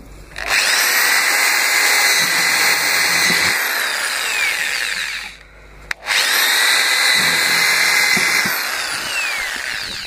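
Electric drill boring holes through a plastic washing-machine tub, in two runs: each time the motor whines up to speed, runs steadily for a few seconds and winds down. A sharp click sounds between the two runs.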